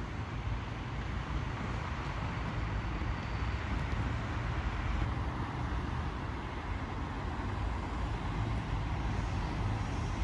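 Steady road traffic noise from passing cars, an even hiss over a low rumble.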